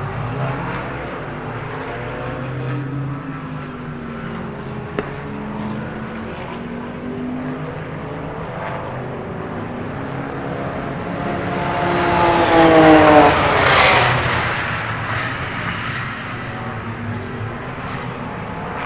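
Racing cars lapping the circuit, their engines heard from a distance, then one car passes close about twelve seconds in, loud, its engine note dropping sharply in pitch as it goes by.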